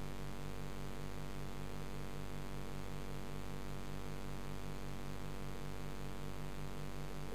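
A tank's filter pump humming underwater: a steady hum with a quick, regular pulsing throb over a constant hiss of flowing water.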